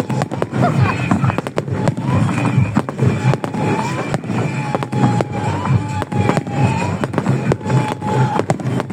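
Fireworks going off in quick succession: many sharp bangs and crackles a second over a continuous low rumble of explosions.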